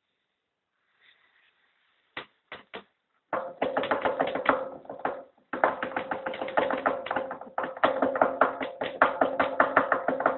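Three single knocks, then a machine running with a fast, rattling knock over a steady hum, in two spells. The knock comes from play in the running gear, which the owner puts down to a worn plain bushing.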